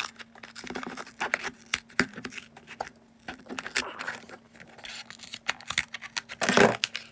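Scissors cutting through a paperboard juice box carton in a series of short snips, with one louder, longer cut near the end.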